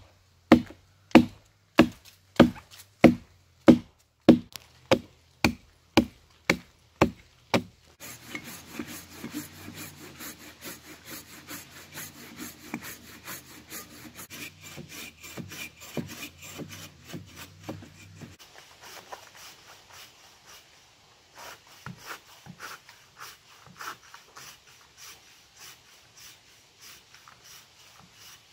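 Steady chopping into a log, about fourteen blows a little over half a second apart that fade slightly as they go. About eight seconds in, a bow saw takes over, rasping back and forth through the log. Later, fainter sawing strokes follow.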